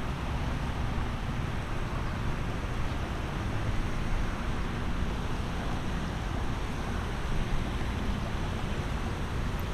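Wind rumbling and buffeting on the microphone over a steady outdoor rushing noise.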